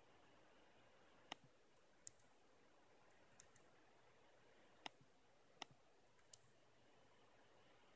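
Near silence, broken by about six faint, sharp clicks at irregular intervals.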